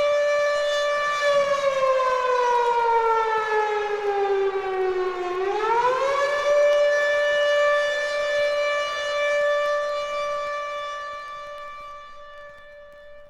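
Warning siren wailing: a steady tone that slides slowly down for about four seconds, swings quickly back up to its first pitch, holds there, and grows fainter near the end.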